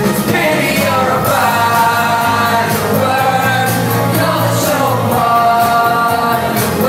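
Live pop music at a concert: sung lead vocals over a band with a steady beat, recorded from the audience.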